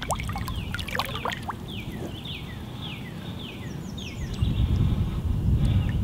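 Water sloshing and splashing as a common carp is let back into the shallows, growing louder about four and a half seconds in. A bird sings short, falling notes over it.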